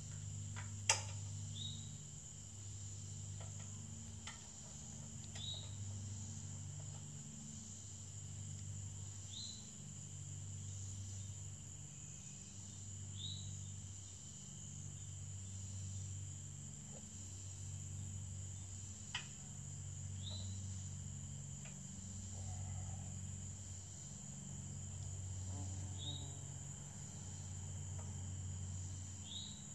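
Steady high-pitched drone of crickets, with a short high chirp repeating every few seconds and a low hum that swells and fades. A few sharp metallic clicks from the steel ladder stand being worked on, the loudest about a second in.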